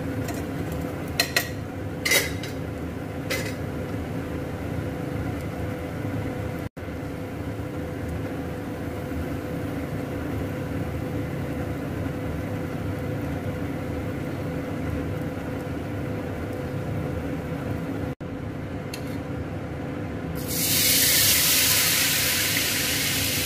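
Ghewar batter sizzling loudly as spoonfuls are poured into hot fat in a small frying pan, starting about 20 seconds in, with a hiss much louder than what comes before. Before that, a steady low hum of the pan on the stove with a few light utensil clinks near the start.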